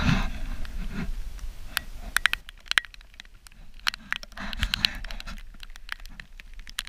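Handling noise from a GoPro being moved against wet rain gear: scratching and scraping, with many sharp ticks and taps, thickest in the middle, over a low rumble.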